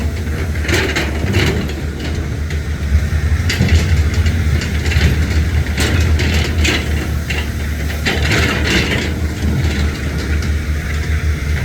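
Heavy diesel earthmoving machinery running steadily, with repeated metallic clanks and rattles throughout.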